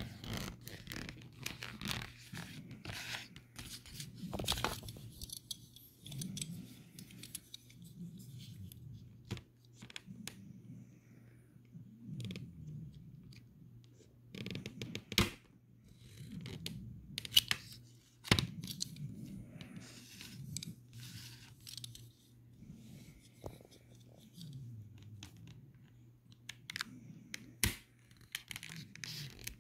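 Small knife cutting and scraping through the covering material around the edge of a wall plate, an irregular scratchy rasping broken by sharp little clicks and taps.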